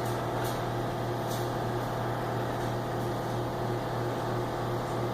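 Steady mechanical hum of shop equipment, unchanging throughout, with a few faint ticks.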